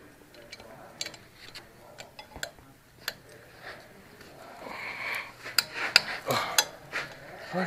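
Metal parts being handled on a steel axle: a drilled brake disc and hub carrier knocked and shifted by gloved hands, giving scattered light metallic clicks and clinks, more of them in the second half.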